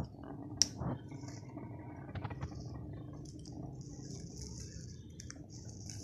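African grey parrots shifting in a wooden nest box: faint clicks and scratchy rustles over a low steady hum, with one sharp click about half a second in and a soft hiss during the last couple of seconds.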